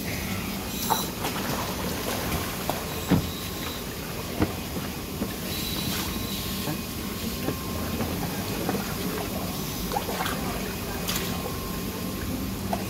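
Steady low mechanical hum of the aquarium's water-circulation machinery beside the shark tank, with water moving, two short hisses and scattered knocks and clicks of diving gear.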